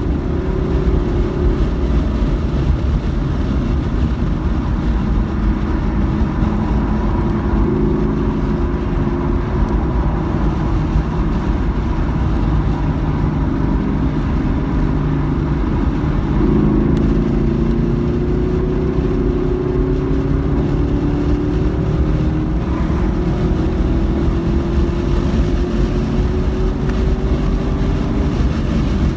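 Car engine heard from inside the cabin, running hard on a race track: the engine note sits lower as the car slows through a corner, then from about halfway climbs steadily in one long pull as the car accelerates hard, over a constant rush of road and wind noise.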